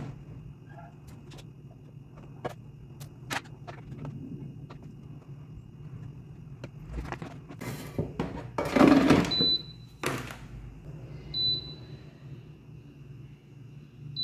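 Silicone-tipped tongs clicking against an air fryer's basket as fries are turned, then the basket pushed back into the air fryer with a loud thunk and scrape about nine seconds in. The air fryer's touch panel then beeps three times as it is set, over a steady low hum.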